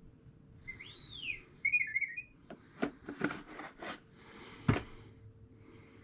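A short whistled chirp that rises and falls, then a quick warble, followed by a run of sharp clicks and knocks and one louder knock about three-quarters of the way through, over a faint steady hum: handling noise from work on ATV air box parts.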